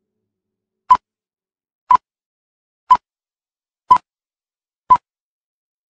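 Countdown sound effect of an old-film leader: five short, sharp blips, one a second, in otherwise dead silence.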